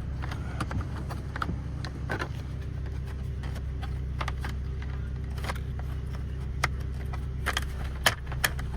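Scattered small plastic clicks and taps as steering-wheel trim and paddle-shifter pieces are handled and fitted together, a few sharper clicks near the end, over a steady low hum.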